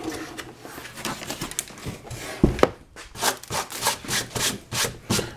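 A hand rubbing and brushing over a 1994 Saab 9000's pressboard rear deck panel and its fabric covering: scratchy rubbing at first, two sharp knocks of the panel being handled about two and a half seconds in, then quick rhythmic strokes of the hand across the cloth, about two or three a second.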